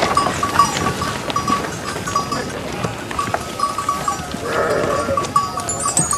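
A flock of sheep bleating now and then, with small livestock bells tinkling in short repeated clinks.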